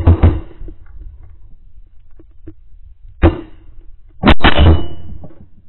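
Several shotgun shots fired at ducks in volleys: two close together at the start, a single shot about three seconds in, and two more in quick succession just after four seconds. Each has a short fading tail.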